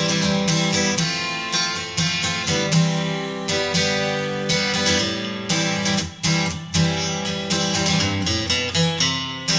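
Background music: acoustic guitar strumming and picking at a steady, quick rhythm.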